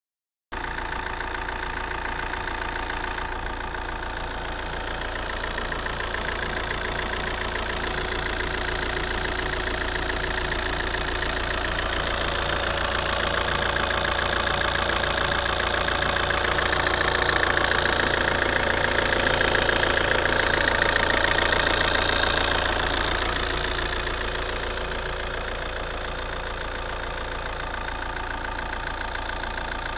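Opel Astra H 1.9 CDTI four-cylinder turbodiesel engine idling with a rapid, rhythmic metallic clatter, which the owner is unsure is normal. The sound grows louder toward the middle and eases back after about twenty-three seconds.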